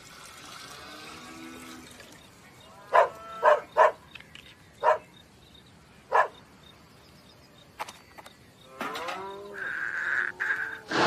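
Cartoon cows mooing: five short calls, a second or less apart, about three to six seconds in. Near the end comes a longer call and a steady high-pitched tone.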